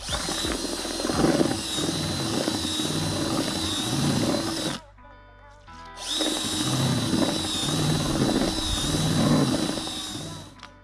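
Electric drill with a mixing paddle stirring dampened fishing groundbait, its motor whining steadily under a grinding churn. It runs in two spells of about five seconds with a short stop between them. Background music plays underneath.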